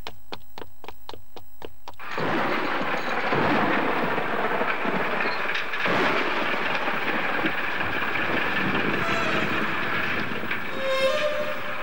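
Cartoon running footsteps, about five a second, for the first two seconds, then a loud, dense crackling electric-shock sound effect with a rumble that carries on to the end.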